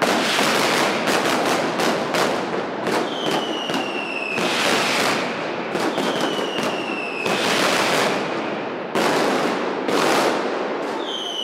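Mascletà firecracker barrage: a dense, rapid, continuous volley of loud firecracker bangs in rolling salvos. A high whistle, falling slightly in pitch, sounds three times over the bangs, the last near the end.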